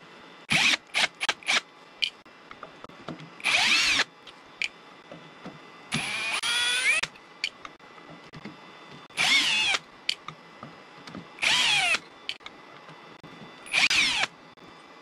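Ryobi cordless drill-driver backing screws out of a lathe faceplate on a wooden bowl blank. A few quick trigger blips come first, then about five short runs of motor whine, each a second or less, one per screw, the pitch sliding as the motor speeds up or slows.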